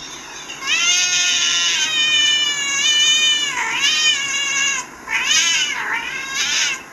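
A cat meowing loudly: one long, drawn-out meow, then three shorter meows that rise and fall.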